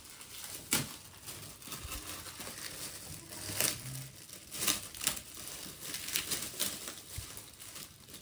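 Gift packaging rustling and crackling as it is handled and opened by hand, with a few sharper crackles at irregular moments.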